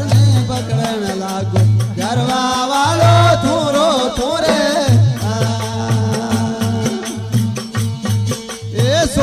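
Marwari folk bhajan music: a drum keeps a steady beat under a wavering melody line, with small cymbals ticking along.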